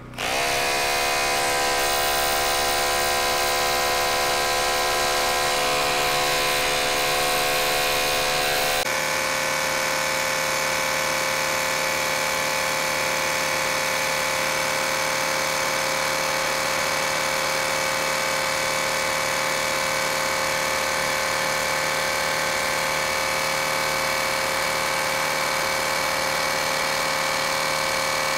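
Bosch BullDog Xtreme 1-inch SDS-plus rotary hammer in hammer-only mode, driving a four-foot length of rebar into the ground through an SDS driver bit. The motor winds up at the start, then runs steadily under load with a sudden change in tone about nine seconds in. It is slow going: the rebar sinks only gradually.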